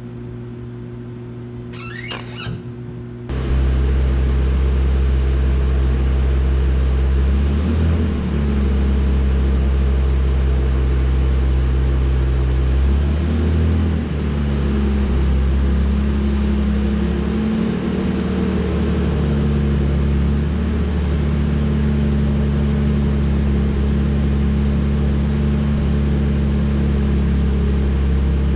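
Jaguar E-Type Series II's 4.2-litre straight-six engine running at a steady idle, heard much louder from about 3 seconds in; before that there is a quieter hum with a short squeak. The engine note dips briefly twice, around 8 and 14 seconds in, as the newly adjusted clutch is engaged and a gear taken up.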